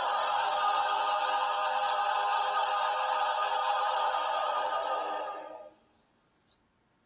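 Background music: a choir-like chord held steady, which stops about six seconds in.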